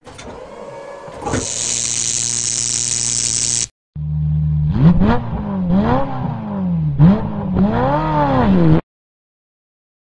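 Logo sound effects: a rising sweep into a steady hiss and hum that stops abruptly, then, after a short gap, a car engine idling and revving up and down several times before cutting off suddenly.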